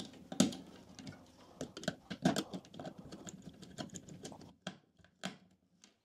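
Small screwdriver clicking and scraping against the screw terminals and plastic housing of a doorbell unit as wires are hooked around and fastened: irregular light clicks, the sharpest about half a second and two seconds in, thinning out near the end.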